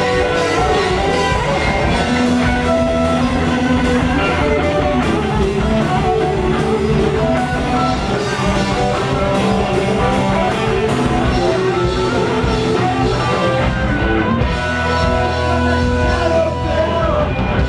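Live metal band, two electric guitars, bass guitar and drums, playing a song loudly.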